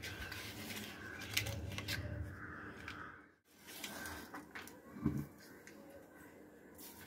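Gas stove burner being lit: a few sharp ignition clicks and a low rush as the gas catches, followed by a dull knock about five seconds in.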